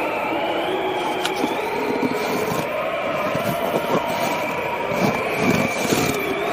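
Winter wind blowing steadily, several whistling tones wavering slightly over a continuous rushing noise.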